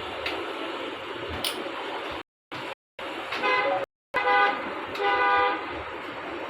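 A vehicle horn honks twice, short steady blasts a second and a half apart, over a steady background hum; the sound cuts out completely for a moment a few times before and between the honks.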